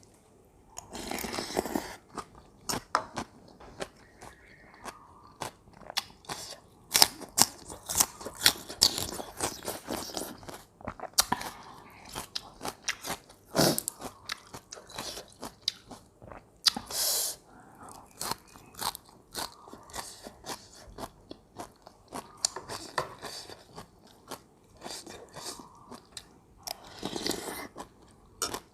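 Close-miked crunchy biting and chewing of raw vegetables with a spicy papaya-seafood salad, many sharp crunches in irregular runs, with a few longer, noisier bursts between them.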